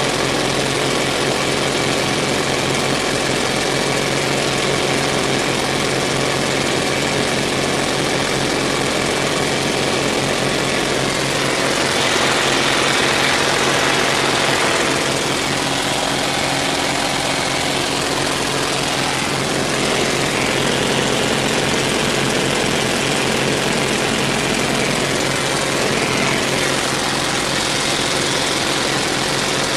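Cockpit sound of a North American T-28A in flight: its radial engine and propeller drone steadily under a broad rush of air. It swells slightly for a few seconds around the middle.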